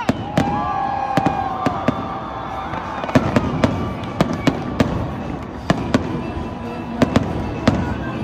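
Stadium fireworks display: aerial shells bursting with sharp bangs, about two a second at irregular intervals.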